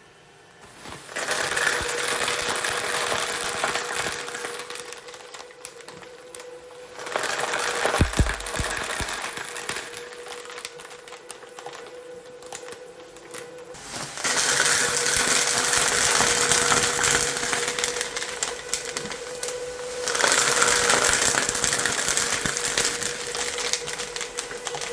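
Industrial shredder running with a steady motor hum, crunching material through its blades in long stretches of dense crackling and popping. There is one heavy thump about eight seconds in.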